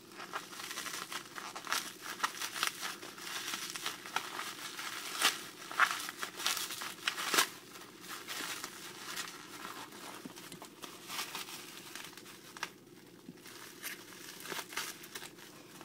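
Packaging crinkling and tearing as toy parts are worked out of their wrapping, in a dense run of irregular crackles, loudest about five to seven and a half seconds in and thinning out near the end.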